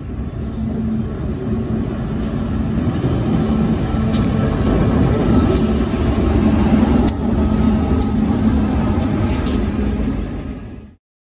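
Aurizon diesel-electric locomotive 2836 leading an intermodal container train past at close range: a steady engine rumble that grows louder as it draws level, with five sharp clicks from the passing train. It cuts off suddenly near the end.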